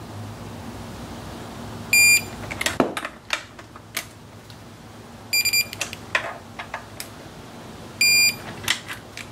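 Digital torque wrench beeping three times, a short high electronic beep each time a throttle-body bolt reaches the set torque, with clicks and knocks of the wrench and socket on the bolts between the beeps.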